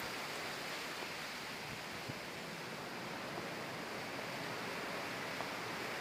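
Steady outdoor ambient hiss with no distinct events, the even background of an open garden among palm trees.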